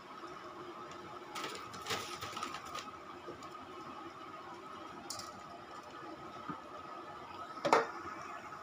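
Pieces of pre-boiled chicken deep-frying in a wok of hot oil, sizzling and crackling steadily, with a burst of louder spattering about a second and a half in. A single sharp knock near the end is the loudest sound.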